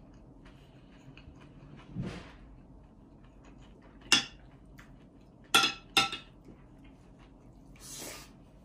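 A white ceramic Chinese spoon (renge) scooping fried rice off a ceramic plate: three sharp clinks of spoon on plate, one about four seconds in and a close pair about a second and a half later.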